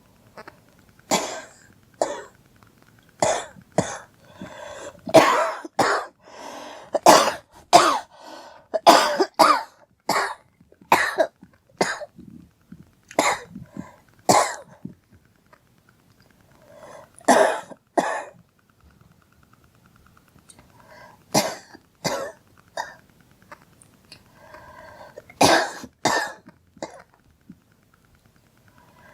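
A girl coughing repeatedly: bouts of short, sharp coughs, several in quick succession, separated by pauses of a few seconds.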